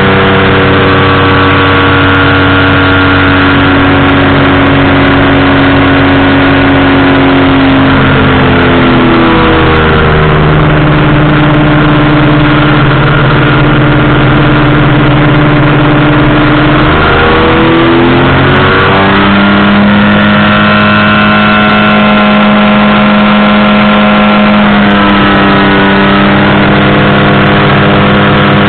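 Powered parachute's engine and propeller running loud and close as the throttle is worked. The pitch drops about nine seconds in, climbs back around eighteen seconds, and eases down a little near the end.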